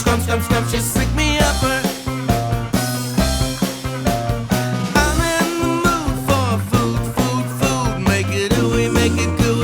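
Upbeat rock-style band music with a driving bass line and drums, from a children's song.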